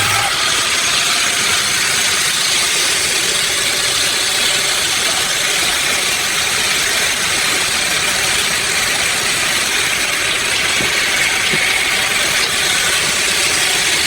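Machinery running steadily, an engine-like drone that holds an even level throughout.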